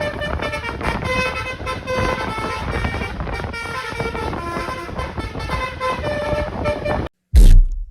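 Telolet multi-tone horn playing a quick melody of changing notes over a low rumble, stopping about seven seconds in, then a loud low thump near the end.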